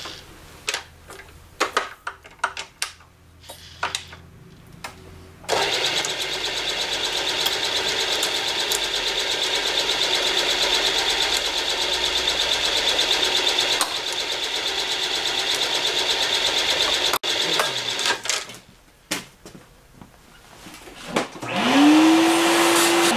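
Milling machine being set up for countersinking aluminium. First come scattered metal clicks as the countersink is fitted in the drill chuck. A loud, steady motor run follows for about twelve seconds and cuts off sharply, and near the end the spindle motor spins up with a rising whine that then holds steady.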